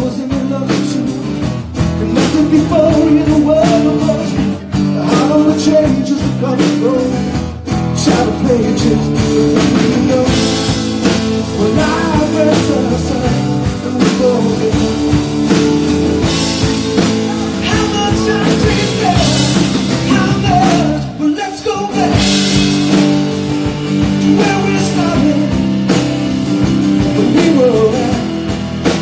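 Live rock band playing: a man singing over acoustic guitar, drums and bass.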